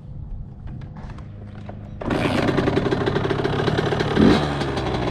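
Suzuki RM85's 85 cc two-stroke single-cylinder engine running at a low, steady note, then turning much louder about two seconds in as the dirt bike is ridden, with a short rev rising in pitch about four seconds in.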